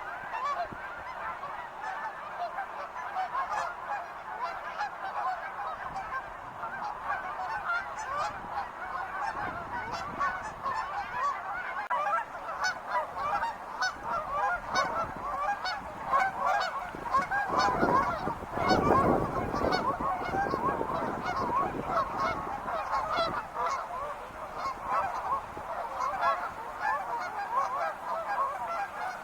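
A large flock of wild geese honking continuously, many short calls overlapping. About eighteen seconds in, a low rushing noise swells under the calls for a couple of seconds.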